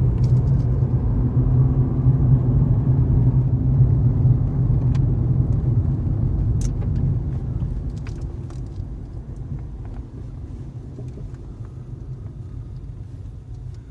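Car engine and road noise heard from inside the cabin while driving, a steady low drone that grows quieter from about halfway through.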